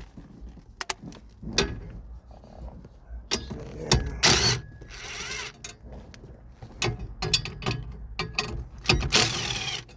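Socket ratchet clicking as 10 mm bolts are backed out, with scattered single clicks and two longer runs of fast ratcheting, one about four seconds in and one near the end.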